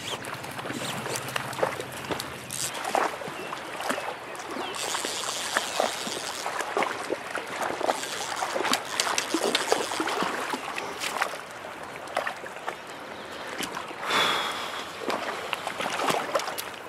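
Shallow stream water sloshing and trickling, with scattered splashes, clicks and knocks, while a hooked trout is played on the fly line. A louder burst of splashing comes near the end.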